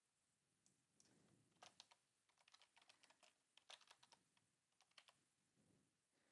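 Faint computer keyboard keystrokes: a quick run of typing that starts about a second and a half in and stops about a second before the end.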